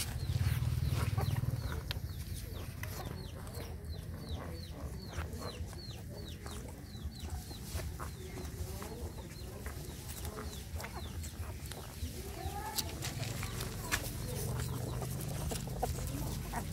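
Chickens: a run of short, high, falling peeps, about three a second, for several seconds, followed by scattered lower clucks.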